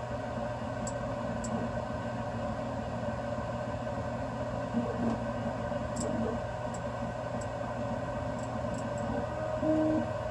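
BIBO Touch X dual-extruder 3D printer printing: a steady hum from its print-head cooling fans, under the tones of its stepper motors. Near the end the motor tones come louder in short steps that change pitch as the head moves, and a few faint ticks sound along the way.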